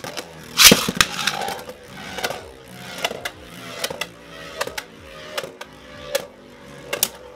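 Two spinning Beyblade Burst tops, Xcalius X3 and Noctemis N3, clattering in a plastic stadium. A loud clash comes about a second in, then sharp knocks roughly every second as the tops hit each other and the stadium wall, over their steady spinning whir.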